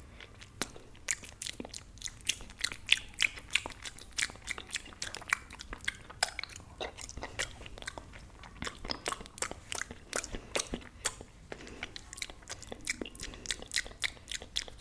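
Wet mouth sounds of fingers being sucked and licked right at the microphone: a dense, irregular run of smacks, clicks and pops.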